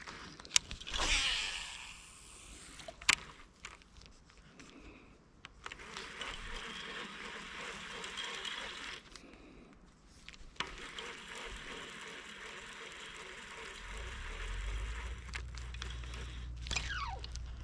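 Baitcasting reel being cranked in two long spells, with scraping and clicking of rod-and-reel handling, while the lure is snagged on the bottom.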